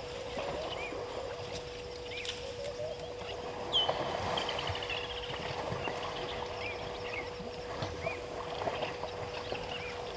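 Water splashing and sloshing as African elephants wade, roll and shove each other in a waterhole. Short bird chirps repeat throughout, and a falling bird trill comes about four seconds in, over a steady faint hum.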